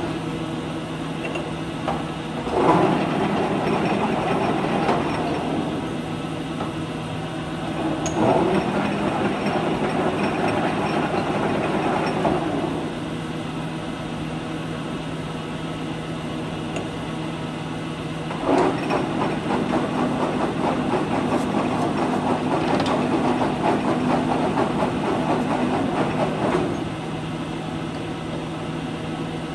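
LeBlond 20" x 48" engine lathe running under power with a steady low hum. Three times it gets louder and busier for several seconds, each spell starting with a sharp clunk, then drops back.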